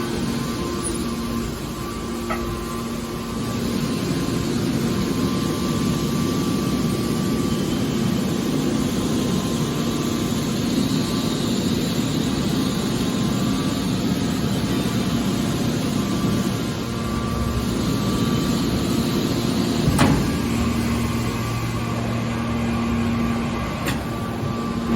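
Hydraulic scrap metal baler running: a steady hum and machinery noise from its power unit, with one sharp clank about twenty seconds in.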